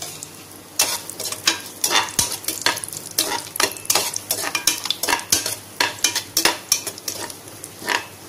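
Spatula stirring cashew nuts and bay leaves frying in oil and ghee in a pressure cooker: many quick, irregular scrapes and taps against the pot over a light sizzle.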